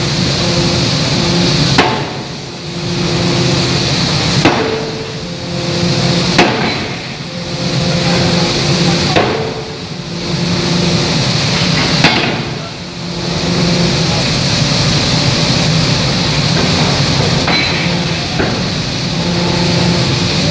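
Anyang C66 open-die forging hammer striking a hot workpiece on the anvil: single sharp blows a few seconds apart, about six in all, with a longer gap before the last. A steady machine hum runs underneath.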